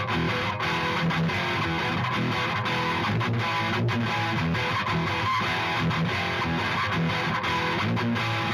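Electric guitar played through a Hughes & Kettner Tubemeister 18 valve amp head, a distorted riff with rhythmic low chugging notes and strummed chords.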